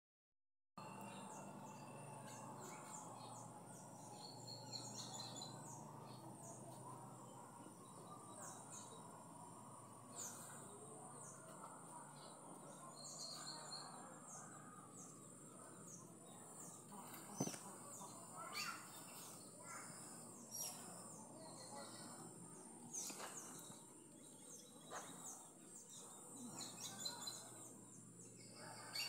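Faint outdoor ambience: birds chirping and calling at scattered intervals over a steady background hiss, with one sharp click a little past halfway.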